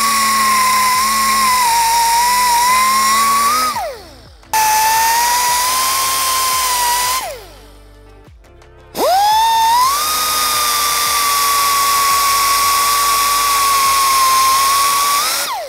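Pneumatic cut-off tool with a small abrasive disc cutting through corroded, seized brake-pad retaining pins on a brake caliper. It runs in three bursts of a steady high whine that sags slightly as the disc bites. Each burst winds down with a falling whine, and the last starts with a quick rising spin-up.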